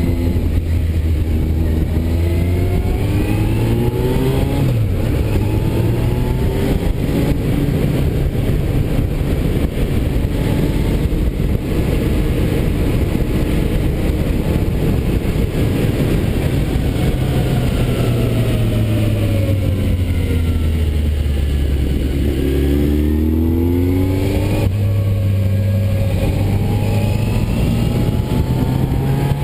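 Motorcycle engine heard from on the bike while riding, revs climbing and then dropping at a gear change a few seconds in. About two-thirds through the revs sink low as the bike slows, then pick up again with another gear change near the end.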